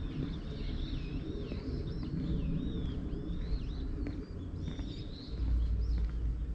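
Small birds chirping and warbling in quick up-and-down notes, over a steady low rumble that grows louder about five seconds in.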